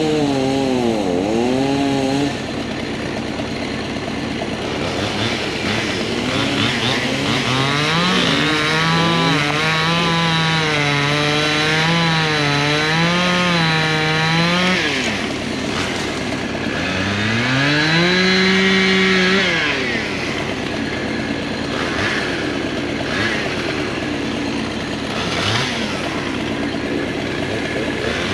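Chainsaw running at full throttle with its pitch wavering up and down, as when the chain is cutting into wood, for about ten seconds, then dropping back; a shorter rev-up and hold follows later before it settles lower again.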